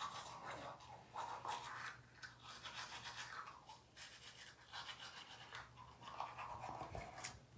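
Manual toothbrush scrubbing teeth: faint, uneven back-and-forth brushing strokes.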